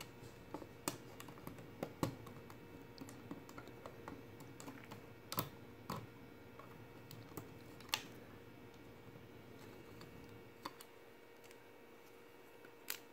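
Plastic Lego pieces clicking and knocking faintly as a small Lego mech model is handled and posed by hand: scattered small clicks, with a few sharper ones about five and eight seconds in.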